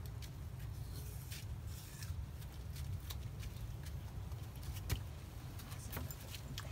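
Wind rumbling on the microphone, with scattered light clicks and taps; the sharpest click comes about five seconds in.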